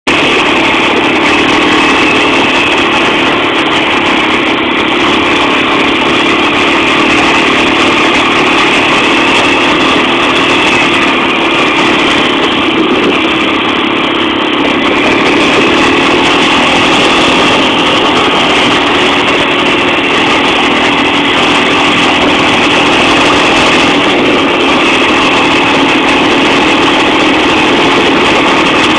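Motorcycle engine running steadily at an even pitch, with no marked revving or gear changes.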